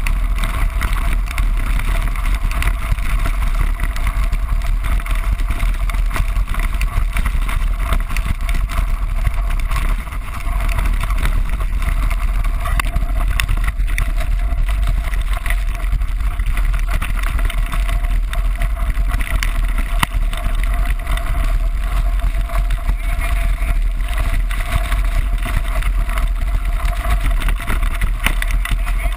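Wind buffeting a bike-mounted action camera's microphone during a fast ride down a loose gravel track, with the tyres crunching over gravel and the frame and camera mount rattling. It runs steadily, with a short dip about ten seconds in.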